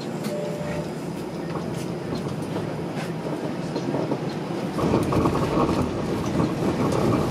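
Running noise inside a TTC Flexity Outlook streetcar as it moves off from a stop: a steady rumble of wheels on rails that grows louder about five seconds in as the car picks up speed.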